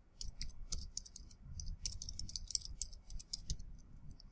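Computer keyboard keys clicking in quick, irregular runs as a terminal command is typed.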